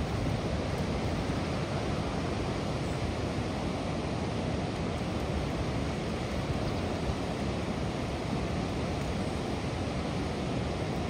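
Flood water rushing over a low dam between concrete bridge piers and churning downstream: a steady, even rushing noise, heaviest in the low end.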